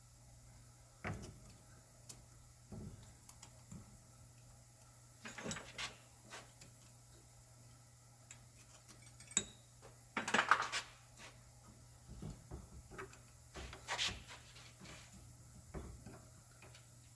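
Metal brake caliper parts being handled and fitted together by hand: scattered light clinks and clicks, with a cluster of louder metal clanks about ten seconds in.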